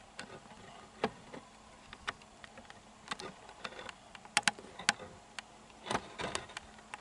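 Scattered faint clicks and taps from a handheld camera being moved and zoomed, with a tight cluster of sharper clicks about four and a half seconds in and another about six seconds in.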